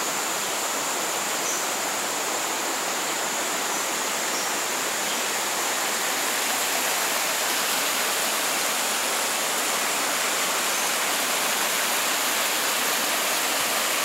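Rushing water of a rocky stream running over small cascades, a steady even hiss that grows slightly louder toward the end. A thin, steady high-pitched tone runs above it.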